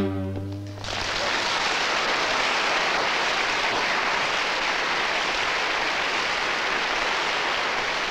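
The final chord of a string quartet (violins, viola and cello) ends just under a second in, followed by steady audience applause.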